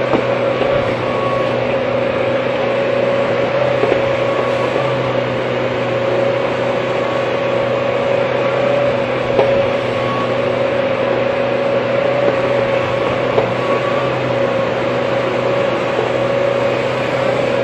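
Hydraulic excavator running at steady engine speed, a constant hum with a steady tone, with a few faint knocks here and there.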